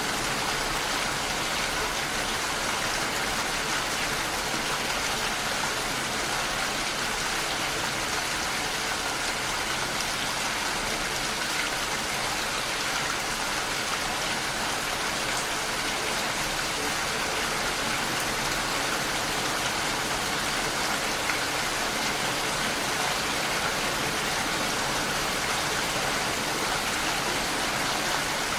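Steady rain falling on a window pane, an even patter of many small drops without a break.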